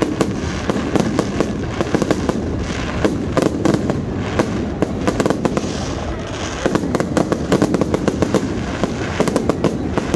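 Fireworks display: a dense, irregular crackling of many small pops and bangs, coming in waves that thicken and thin over the few seconds.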